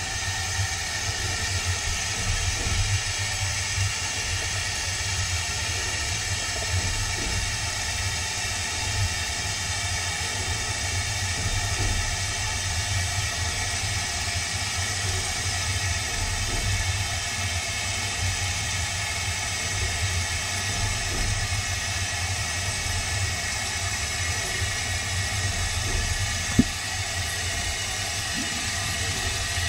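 Steady hiss of steam in the cab of a narrow-gauge 2-6-2 steam tank engine over a low rumble, with a single sharp click near the end.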